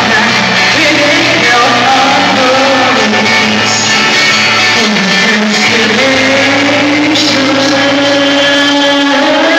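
Woman singing a pop song into a microphone over backing music, both amplified through PA loudspeakers. She holds one long note through the second half.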